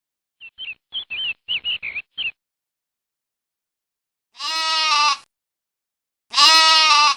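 A small bird gives a quick run of about seven short, high chirps. After a pause, a sheep bleats twice, each bleat a long call lasting under a second.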